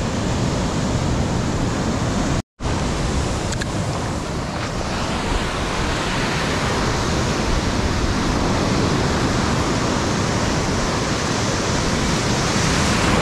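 Steady rush of surf and wind on the beach, with wind buffeting the microphone. The sound cuts out completely for a moment about two and a half seconds in.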